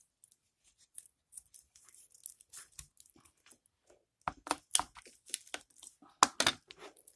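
Knife cutting through a raw chicken leg quarter at the joint between drumstick and thigh, with faint scraping at first and then, from about four seconds in, a quick series of loud cracks and crunches as the blade works through the joint.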